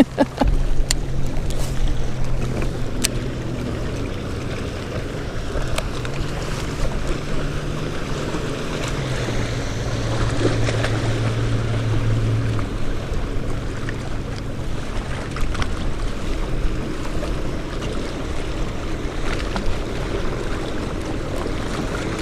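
Wind on the microphone and small waves lapping around a fishing kayak by a rock jetty, a steady wash of noise with a few light knocks. A low hum runs under it, deeper and louder for a few seconds about halfway through.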